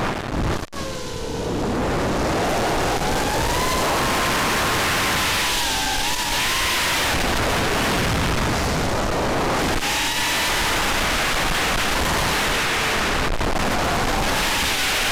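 Armattan F1-4B FPV quadcopter's Cobra 2204 2300 kV motors and DALprop 4-inch three-blade props whining, the pitch rising and falling with throttle during acro flight, over a dense rushing noise. The sound drops out briefly under a second in, a throttle chop during a flip.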